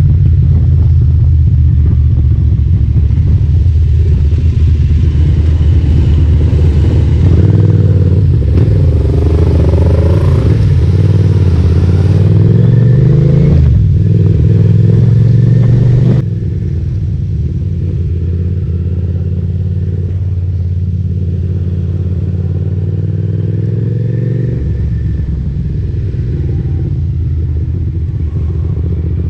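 Motorcycle engine running on the move, its note rising and falling with throttle and speed. The whole sound drops suddenly in level about sixteen seconds in.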